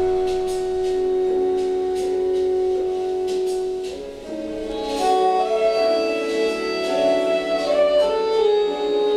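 Slow instrumental music: one long held note for about four seconds, then a melody moving through sustained notes.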